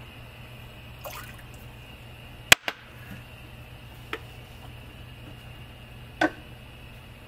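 Hand handling at a lever espresso machine: a few light clicks and knocks, a sharp loud click about two and a half seconds in, and a clack near the end as a small coffee scale is set down on the machine's base, over a steady low hum.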